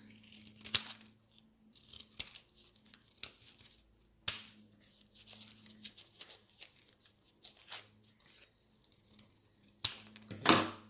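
Plastic coin-cell battery packaging being torn and crinkled open, with scattered crackles, a sharp click about four seconds in and a louder tear near the end.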